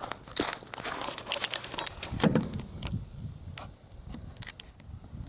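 Irregular light clicks, knocks and rustling, with the loudest knock about two seconds in; no gunshot.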